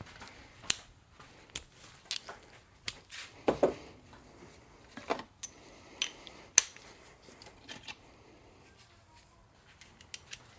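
Socket wrench and extension clinking and tapping against metal as they are worked onto the turbo bolts: about a dozen scattered, irregular sharp clicks, some with a short metallic ring.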